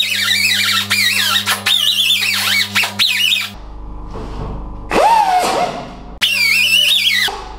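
Small air-powered rotary sander grinding the edge of a hole in a tractor hood: a high, wavering whine with air hiss that cuts off about three and a half seconds in. A brief burst follows near the five-second mark, then it runs again for about a second near the end.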